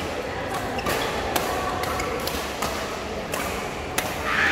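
Badminton rackets striking a shuttlecock during a rally, a handful of sharp cracks spaced about a second apart, over a background of voices in a big reverberant hall. A louder voice comes in right at the end.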